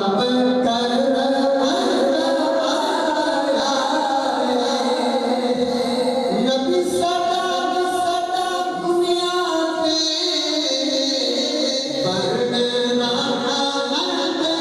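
Voices singing a devotional Punjabi naat in long, held, drawn-out notes, with several voices together at times.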